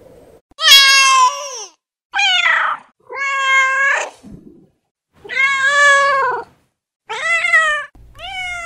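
Domestic cat meowing: six meows in a row, each about a second long and separated by short silent gaps, some falling and some rising in pitch.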